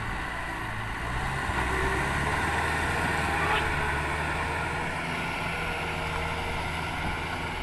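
Diesel engine of Kubota farm machinery running steadily, growing a little louder between about one and three seconds in.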